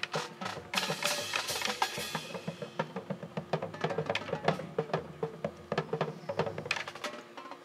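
High school marching band's percussion section playing a busy passage: snare and bass drums in quick strokes, with the front ensemble's pitched percussion underneath.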